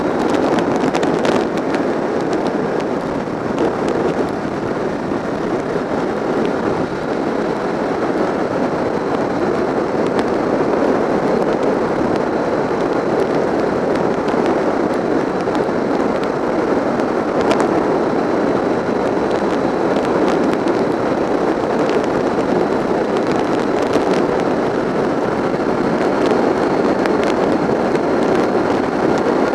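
Loud, steady wind rush and buffeting over a motorcycle-mounted camera's microphone at road speed, full of sharp crackles, with the Honda VFR750's engine and tyre noise mostly buried under it.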